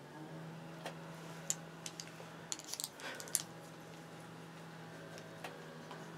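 Light clicks and taps of a paintbrush against a watercolour paint box and water tray as colour is picked up, several sharp clicks close together in the first half, over a steady low hum.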